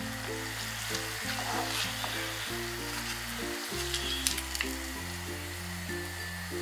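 An empanada sizzling in hot oil in a frying pan as it is lifted out with a wire strainer, with a steady frying hiss and a few light clicks about four seconds in. Soft background music plays underneath.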